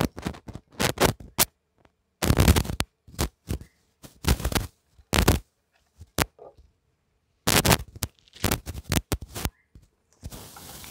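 Irregular scraping and rustling in short bursts and clicks from plastic rope being handled and knotted as it is tied around a hanging coconut-shell hive.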